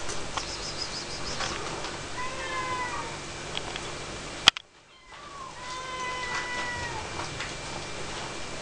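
A cat meowing twice: a shorter call, then a longer drawn-out one. About halfway through there is a sharp click, then the sound drops out briefly.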